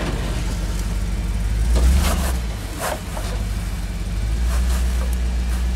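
Four-wheel drive's engine running at low revs as it crawls over a boulder, its note swelling briefly about two seconds in and building again near the end.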